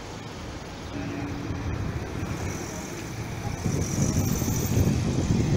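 Street noise of motor vehicles running, a low rumble that grows louder about four seconds in.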